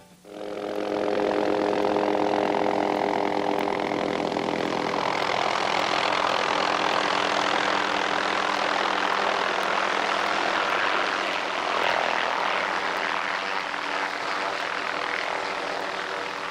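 Hughes 500 light helicopter's rotor and engine. At first it is a steady hum with a few held tones; after about five seconds a loud, broad rush builds as it hovers and sets down in blowing snow, easing off near the end.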